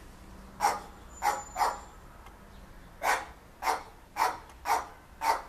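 A dog barking, about eight short barks coming singly and in pairs.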